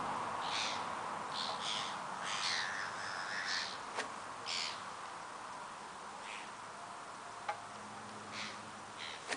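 Gulls calling over water in short cries, several in quick succession over the first four seconds, then fewer and further apart. A sharp click sounds about four seconds in.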